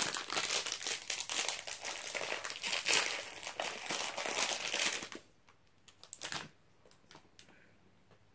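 Thin clear plastic bag crinkling in the hands as a Beyblade top is worked out of it. The crinkling stops about five seconds in, leaving a few faint clicks of the plastic being handled.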